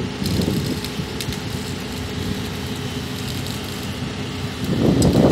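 Mobile crane's diesel engine idling steadily, with a louder swell of low sound near the end.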